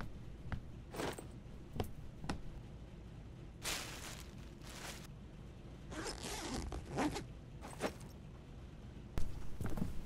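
Zipper on a children's backpack being pulled in several short strokes, with a few light knocks and rustles around it.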